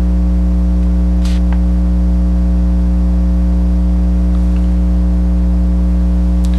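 Steady electrical mains hum with a stack of higher overtones, loud throughout. A brief soft hiss comes about a second in.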